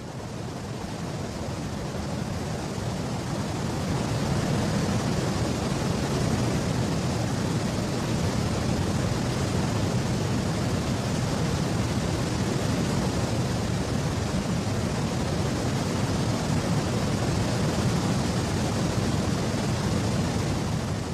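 Rushing water, a river or falls in spring flood: a steady, full roar that swells over the first few seconds and then holds.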